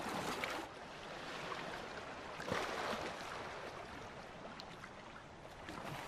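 Sea water splashing and rushing around a bottlenose dolphin at the surface with a freshly caught salmon in its mouth. There is a louder surge in the first half second and another about two and a half seconds in.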